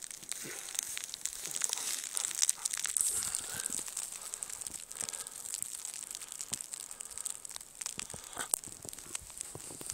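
Footsteps crunching in snow: an irregular run of crackles and crunches as someone walks.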